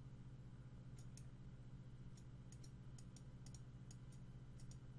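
Faint, irregular computer mouse clicks, beginning about a second in, over a steady low electrical hum.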